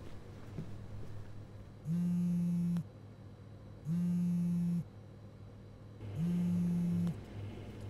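Mobile phone on vibrate buzzing with an incoming call: three low buzzes, each about a second long, about two seconds apart, over a faint steady hum.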